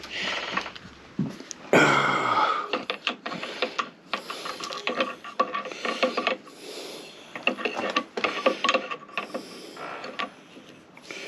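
Hand tools working on a hydraulic hose fitting: irregular metal clicks, knocks and scraping, with a louder ringing scrape about two seconds in.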